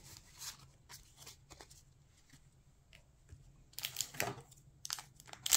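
Quiet taps and rustles of trading cards being set down, then, from about four seconds in, the crinkling of a foil booster pack being handled, growing louder near the end.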